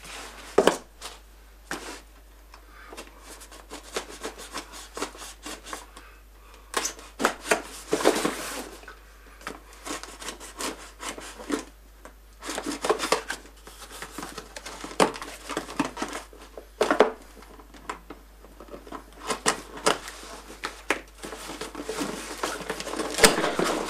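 Small cardboard box being handled and opened by hand: irregular scraping, rubbing and short knocks on the cardboard, busier in the second half, with the flaps pulled open near the end.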